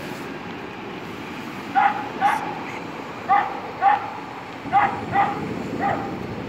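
A dog barking about seven times, the short barks mostly in pairs, starting about two seconds in. Beneath them runs the steady low rumble of a passenger train rolling past.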